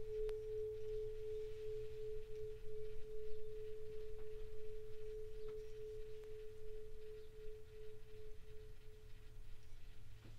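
Hand-held Tibetan singing bowl ringing out with a single pure tone that pulses about three times a second and slowly fades away about nine to ten seconds in. A faint click sounds near the start.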